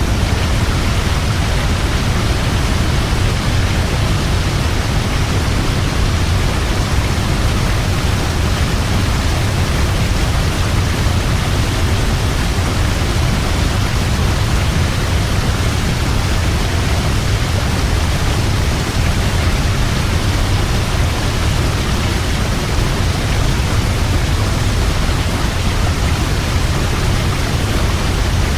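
A large waterfall: a steady, loud rush of falling water, heaviest in the low rumble, with no breaks or changes.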